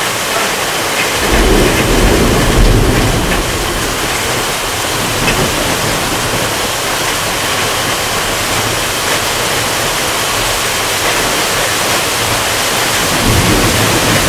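Heavy rain pouring steadily onto forest trees. A low rumble of thunder starts about a second in and lasts a couple of seconds, and another comes near the end.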